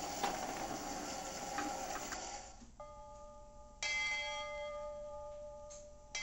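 Music that cuts off about two and a half seconds in, followed by a few steady bell-like chime tones. A fresh bright chime strike comes about four seconds in and rings on.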